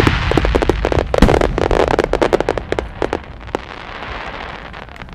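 Aerial fireworks crackling: a dense spray of small sharp pops that thins out and fades over a few seconds, as the last crackling effects burn out.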